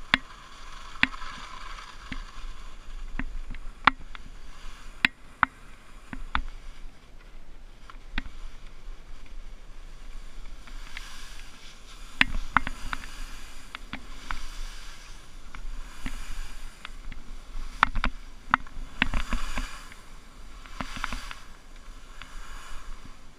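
Skis sliding and turning on soft, unfrozen snow, with a swish of snow at each turn, loudest in a few stretches about halfway through and again near the end. Sharp clicks and knocks recur throughout.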